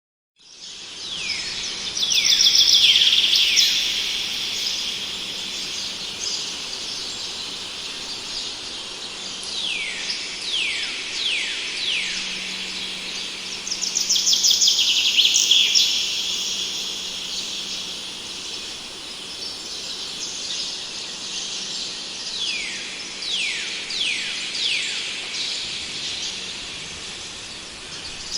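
Wild birds singing: repeated downward-sliding whistles, with two louder spells of fast twittering, about two seconds in and again around fourteen seconds in. A steady hiss runs beneath the song.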